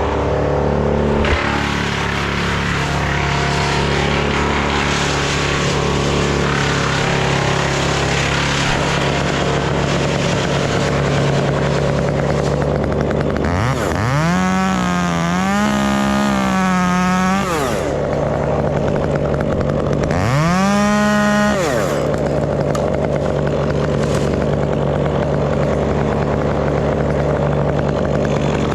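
Stihl 201 top-handle chainsaw revving up to full throttle twice, about four seconds the first time and two seconds the second, each rev rising quickly in pitch and then falling away. A steady engine drone runs underneath.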